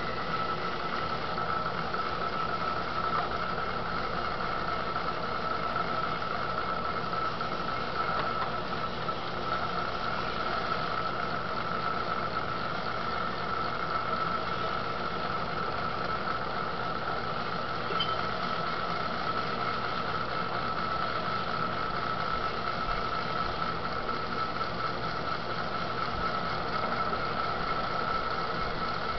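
Electric potter's wheel running at a steady speed: a constant motor hum with a steady whine over it.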